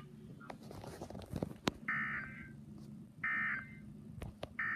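NOAA Weather Radio EAS end-of-message signal: short bursts of buzzy SAME data tone about 1.4 seconds apart, two complete and a third starting near the end. They mark the close of the severe thunderstorm watch broadcast. A few faint clicks come before the first burst.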